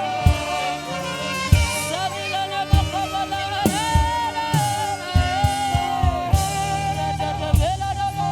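Saxophone playing a slow worship melody, holding long notes and sliding between them, over bass and a drum beat with a kick about once a second.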